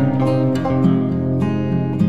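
Background music led by a plucked acoustic guitar, moving from note to note at a steady level.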